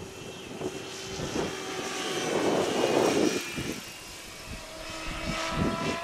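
Align T-Rex 760 electric RC helicopter in flight: a whine from the motor and drivetrain with slowly drifting pitch, over the rush of the rotor blades, which swells loudest in the middle. Wind rumbles on the microphone.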